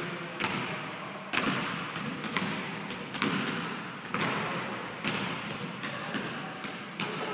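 Basketball bouncing on a hardwood gym floor, irregularly about once a second, each bounce echoing through the large hall.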